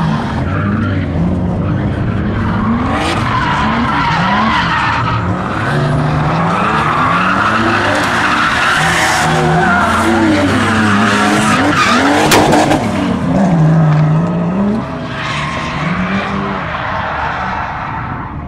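Mk2 Toyota Supra (MA61) straight-six revving up and down repeatedly while drifting, with tyres squealing and skidding on tarmac. A single sharp crack about two-thirds of the way through.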